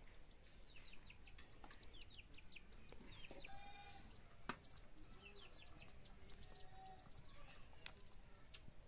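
Faint calls from chickens: rapid high chirps repeating several times a second, with a few lower clucks about a third of the way in and again later. Two sharp clicks cut in, one near the middle and one near the end.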